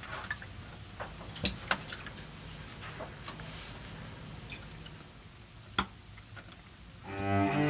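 Liquid sloshing and dripping in a darkroom print tray as a sheet of photographic paper is slid in and rocked, with a few sharp drips and taps over a faint low hum. Cello music comes in near the end.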